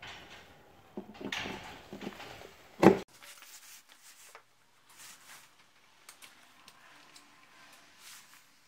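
Handling noises: rustling, then a single loud knock about three seconds in, followed by faint scattered taps and scrapes as a plastic wall bracket is held against drywall and marked for screws.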